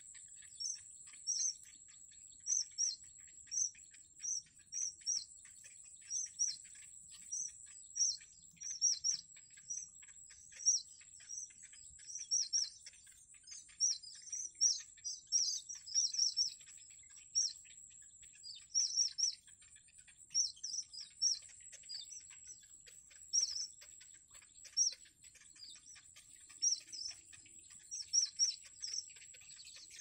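Bittern nestlings giving shrill, high begging chirps in quick irregular clusters as they are fed, over a faint steady high whine.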